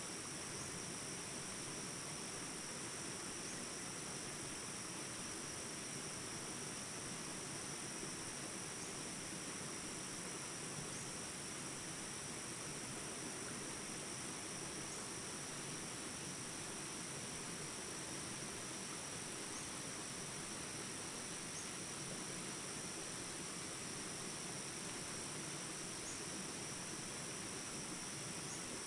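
Jungle ambience recording: steady high insect chirring over the even rush of small rapids.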